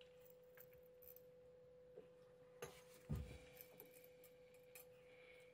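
Near silence: a faint steady hum, with a few soft taps and a dull knock about three seconds in, from gloved hands bending an aluminium tube around a glass wine bottle.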